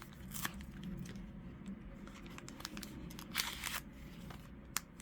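Foil Pokémon booster pack wrapper crinkling as it is handled, with a longer rustle about three and a half seconds in and a sharp click near the end.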